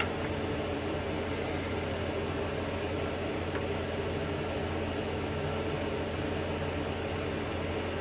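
Steady machine hum and hiss, unchanging, with a faint click about three and a half seconds in.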